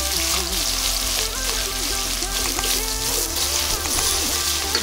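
Chopped onions sizzling in hot oil as they are stirred with a wooden spatula, a steady frying hiss, with background music playing under it.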